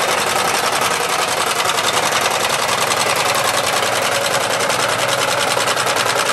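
Wilesco D32 model steam engine running steadily on live steam, its piston, crank and flywheel keeping up a fast, even mechanical beat.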